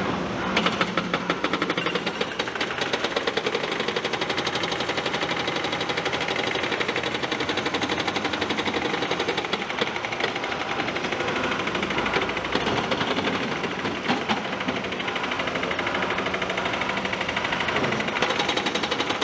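Hydraulic breaker hammer on an excavator pounding rock in a fast, even run of blows, with the machine's engine running underneath.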